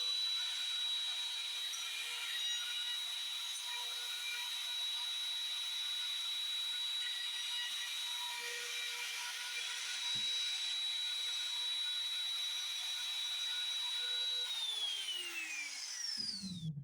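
Electric wood router running at full speed with a steady high whine while cutting a hinge mortise in the door's wooden edge. Near the end it is switched off and the whine falls away as the bit spins down.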